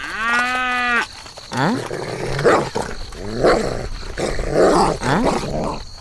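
Cow mooing: one clear, held moo in the first second, then a run of four rougher moos, each rising in pitch.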